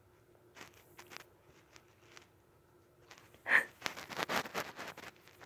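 Close scratchy rustling and brushing of fingers against a cat's fur and ear, faint at first, then a sharp loud scrape about three and a half seconds in followed by a dense run of rustling.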